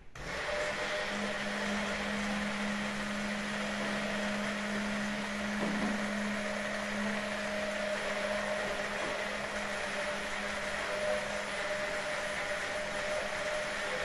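Hand (immersion) blender motor switching on and running steadily at one pitch, held still in egg and olive oil as they are whipped into mayonnaise.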